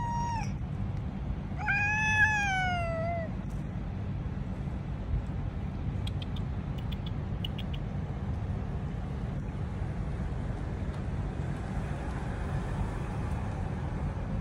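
Cat meowing twice: a short meow right at the start, then a longer one about two seconds in that rises and falls in pitch. A steady low rumble runs underneath.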